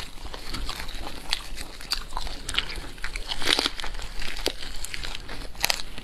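Close-up biting and chewing of a leaf-wrapped piece of smoked pork belly: irregular crisp crunches and crackles, loudest about halfway through and again near the end.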